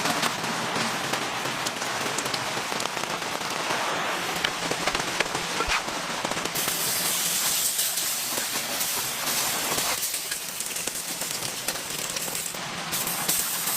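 Steady hiss of rain with the irregular sharp pops of a crackling campfire. A brighter, higher hiss comes in about six and a half seconds in.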